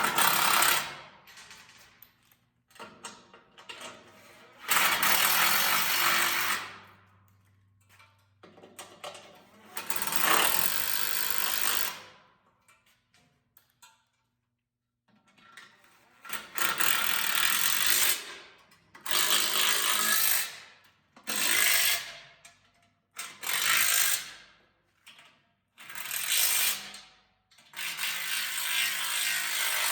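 Power tool running bolts in, in short bursts of one to two seconds, about nine times, with pauses between.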